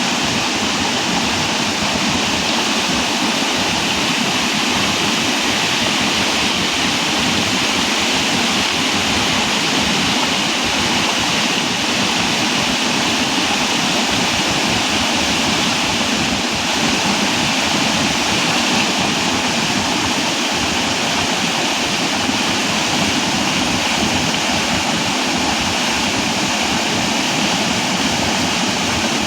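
Waterfall: a steady, loud rush of falling water that holds without a break.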